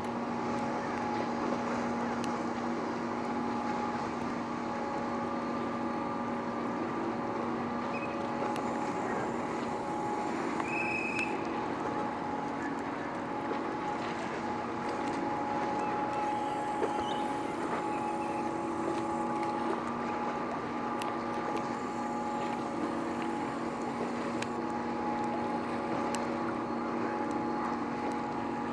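Steady hum of a large car ferry's machinery running at the quay ahead of departure, with a few held tones in it and no change throughout.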